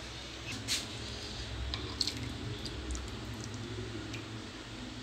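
Thick matar paneer curry being spooned into a bowl: soft wet squelches and a few light clicks, over a low steady hum.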